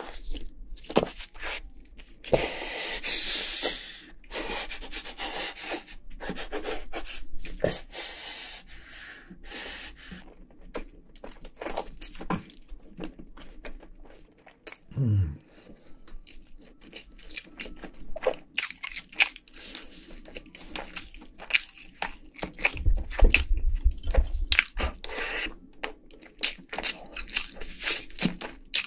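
Close-miked eating of sauce-coated Korean fried chicken: crisp crust crunching between the teeth, with wet chewing and sticky smacks in quick, irregular clicks. There is a short stretch of low thuds about two-thirds of the way through.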